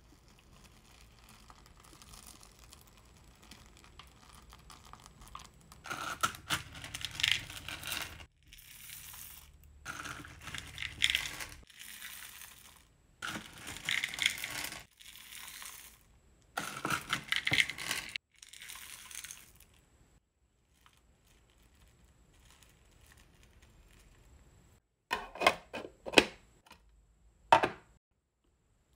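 Hard wax beads being scooped from a plastic tray and poured into a wax warmer pot, rattling and clattering in four bursts. Faint stirring rustle before them, and a few sharp knocks near the end.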